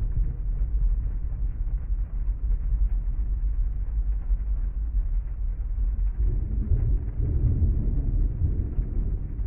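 Steady low rumbling rain heard from inside a parked car's cabin, swelling a little deeper about six seconds in.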